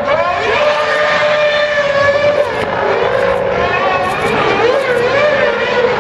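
Racing engines of a Formula One car and a V8 Supercar revving hard during burnouts, a high sustained engine note that wavers up and down from about halfway through.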